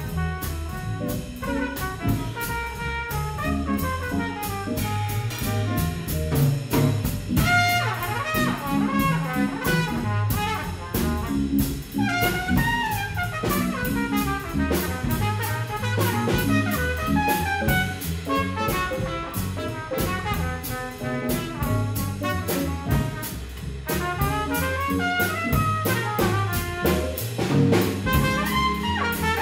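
Trumpet playing a fast jazz solo of quick runs of notes, with a band keeping time behind it on low bass notes and a steady tapping beat.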